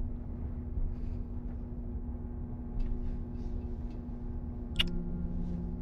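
A low steady hum of a few held tones under a faint rumble, with a few soft ticks and one sharper click near the end.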